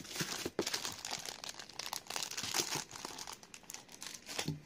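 Clear plastic sleeve of a mouse pad crinkling and crackling irregularly as it is handled and pulled out of a cardboard box; the crackle dies down near the end.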